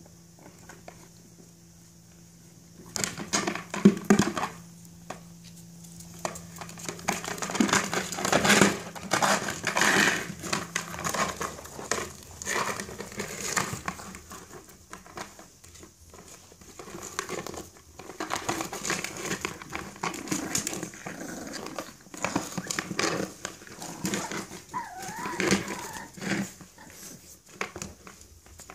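French bulldog puppies playing rough around a plastic flower pot: small dog noises mixed with a steady clatter of knocks and scrapes as the pot is pushed over paving stones. It is quiet for the first few seconds, then busy throughout.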